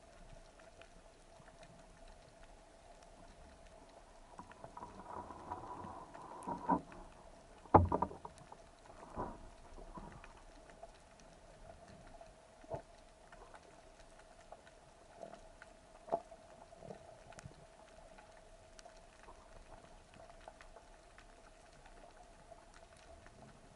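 Underwater ambience picked up by a camera in a waterproof housing during a dive: a faint steady hum with scattered clicks and knocks, the loudest knock about eight seconds in.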